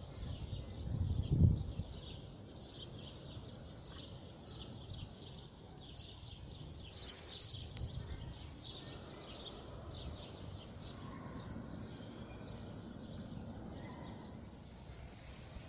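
Small birds chirping and singing over and over in the background, with a brief low rumble about a second in.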